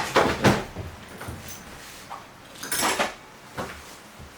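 Camping gear being handled while unpacking: a few short clattering knocks, the loudest about three seconds in.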